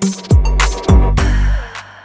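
Background music with a steady beat: deep bass-drum hits and sharp snare hits.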